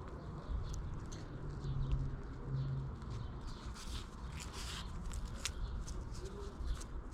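Birds calling in the background over a low outdoor rumble, with scattered light clicks and rustling throughout.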